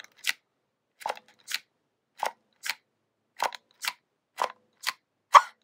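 Plastic clicking from a Guts Man action figure's push-down head mechanism. There are about five presses, roughly one a second, and each gives a pair of clicks about half a second apart. The presses pump the figure's rubbery belly out.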